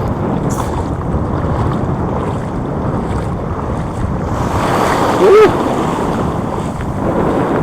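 Wind buffeting the microphone over waves washing in at the water's edge, a steady rushing noise. About five seconds in, a short arching pitched sound cuts through once, louder than the rest.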